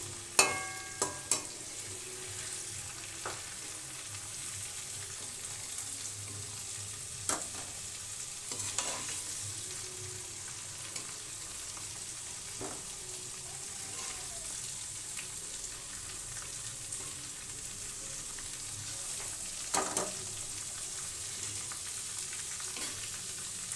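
Marinated chicken pieces sizzling steadily in hot oil in a pan while they are scooped out. A utensil knocks against the pan several times, most sharply at the very start, with more knocks about a third of the way in and near the end.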